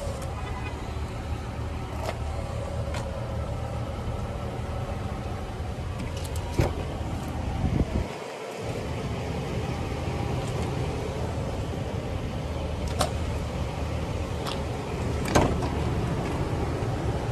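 Chevrolet Silverado pickup's engine idling steadily, with a few sharp clicks and knocks from the truck's door being handled and opened around the middle.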